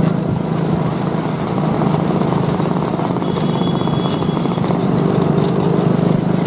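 A motor vehicle engine running steadily under a constant rushing noise, with a low hum that holds an even pitch.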